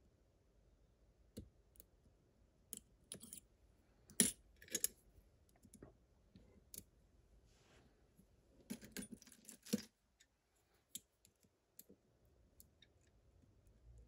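Faint metallic clicks and scrapes of lock picks working in the cylinder of an Abus TS5000 padlock, with two louder bursts of metal clatter about four seconds in and around nine seconds as the tools are handled and swapped.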